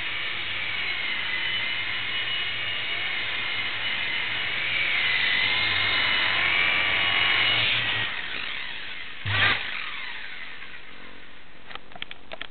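Blade mSR micro RC helicopter's small electric motors whining, the pitch wavering up and down, before dying away about eight seconds in. A thump follows about a second later, then a few small clicks near the end.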